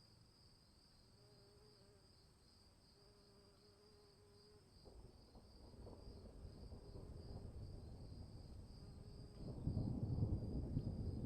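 Insects, crickets, trill steadily in a high pulsing chorus. About five seconds in, a low rumble of thunder begins and builds, growing much louder near the end.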